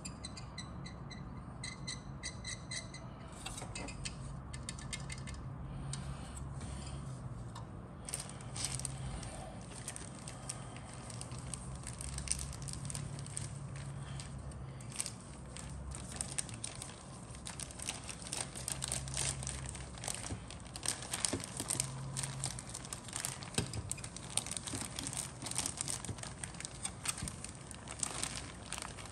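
Clear plastic kit bag crinkling and plastic model-kit parts trees clicking as they are handled, with many small crackles from about eight seconds in that grow denser toward the end, over a steady low hum.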